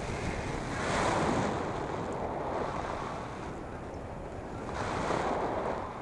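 Wind rushing over the microphone of a hang glider in flight, a steady rush that swells twice, about a second in and again near the end.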